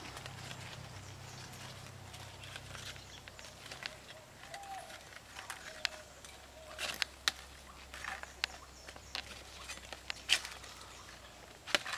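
Fresh leaves being plucked from a shrub by hand: scattered crisp snaps and rustles of stems and leaves, some of them sharp clicks, coming more often in the second half. A short animal call sounds about four and a half seconds in.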